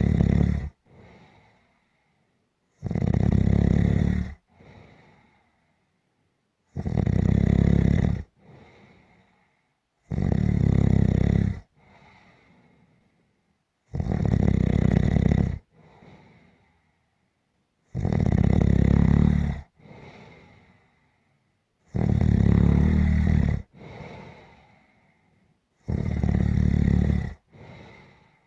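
Loud, regular snoring: a low, rattling snore about every four seconds, each lasting about a second and a half and followed at once by a shorter, much fainter breath.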